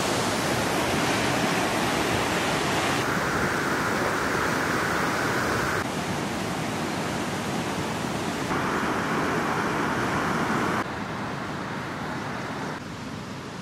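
Fast white-water mountain river rushing in a steady, noisy torrent. The level jumps abruptly up and down a few times and drops quieter near the end.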